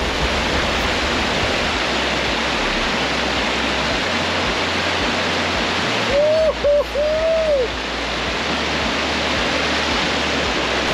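River water rushing steadily over rocks and a small cascade. About six seconds in, a voice gives a brief wordless whoop.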